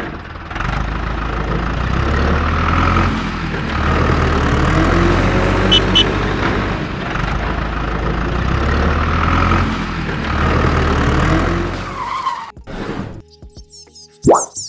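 A loud, steady mechanical noise with a low hum, like a motor running, that stops about twelve seconds in.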